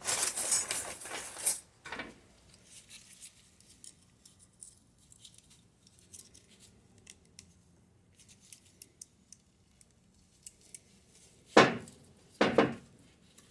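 Small metal brake parts and tools being handled during a brake pad job: a brief rustle at the start, then light clinks and ticks, and two louder metallic clanks about a second apart near the end.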